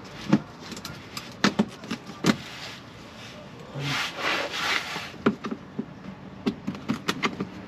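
A flat screwdriver prying plastic clips out of a plastic underbody panel: a string of sharp clicks and snaps, with a longer scraping rub of metal on plastic about four seconds in.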